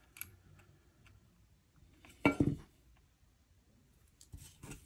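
Small, sparse clicks and taps of HO scale metal wheelsets handled against a steel wheel gauge as the wheels are twisted on their axles to reset their spacing, with one louder short sound about two seconds in and a few quick clicks near the end.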